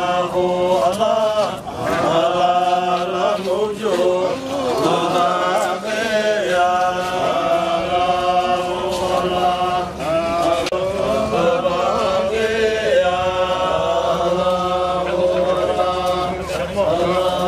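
Male voices chanting an Arabic devotional chant, a Sufi qasida in praise of the Prophet, sung in long, sliding held notes without a break.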